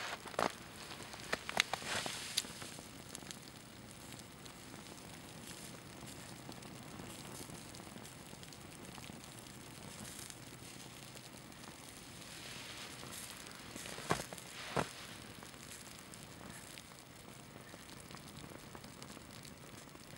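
Small flame burning the hem of a synthetic sports shirt, crackling and hissing faintly, with a cluster of sharp pops in the first few seconds and two more about fourteen seconds in.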